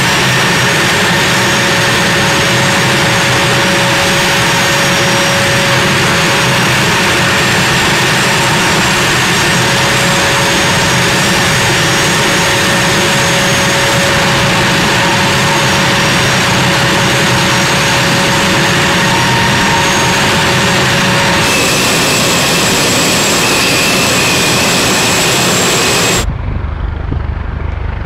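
Jet engines running steadily on an airfield flight line, a loud rushing noise with a steady high whine. About 21 seconds in the sound changes to a different engine tone, and near the end it cuts to a quieter low rumble.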